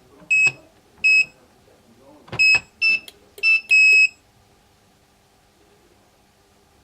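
A wireless alarm keypad gives short, high electronic beeps as its keys are pressed, some with audible button clicks. There are six beeps in all, the last one longer, just after four seconds in.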